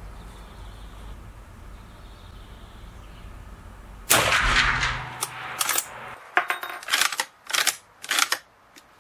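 A single shot from a Pedersoli 1886 lever-action rifle in .45-70 Government about four seconds in, echoing off the range walls. It is followed by a string of short metallic clicks and clacks as the lever action is worked open.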